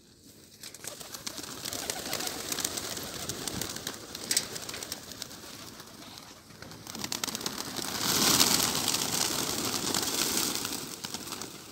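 A large flock of domestic Gola pigeons on the ground, cooing amid a steady rustle of wings and feet, swelling into a loud rush of flapping wings about eight seconds in as many birds beat their wings at once.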